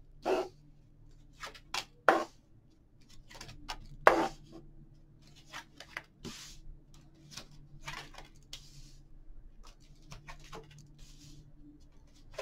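Tarot cards being dealt from a deck and laid down on a table: irregular crisp snaps and short slides of card stock, the sharpest about four seconds in, over a faint steady hum.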